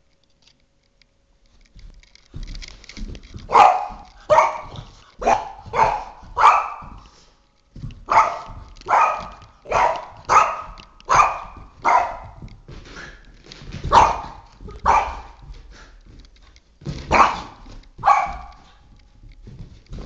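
Boston Terrier barking at a flashlight beam: sharp barks in quick runs of about two a second, broken by short pauses.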